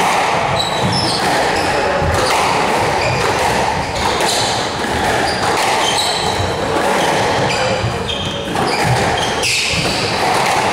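Squash rally: the ball cracking off rackets and the court walls again and again, with rubber shoes squeaking on the wooden floor, in the echoing court.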